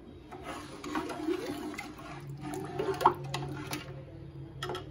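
Stainless steel kitchen utensils clinking in short, irregular knocks while liquid kadhi sloshes in a steel pot.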